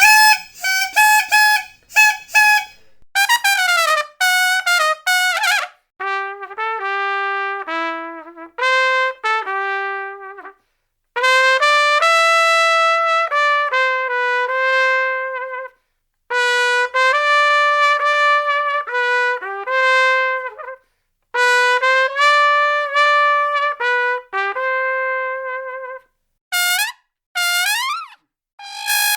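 A brass horn plays a string of short melodic phrases, each a few held, stepped notes, with brief silences between them. A few notes slide in pitch in the first seconds and near the end.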